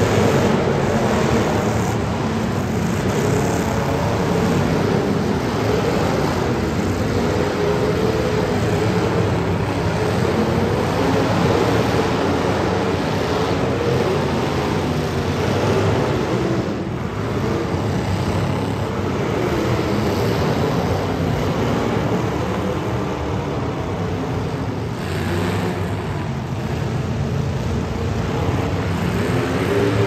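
Several demolition derby cars' engines running hard and revving together, a loud, dense engine noise whose pitch wavers up and down throughout.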